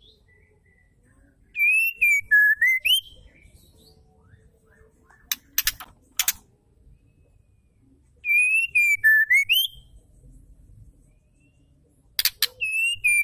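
White-rumped shama giving the same short whistled phrase three times, about a second and a half in, about eight seconds in and near the end. Each phrase wavers, dips and then sweeps up, with quick high twittering notes over it. Sharp clicks come between the phrases.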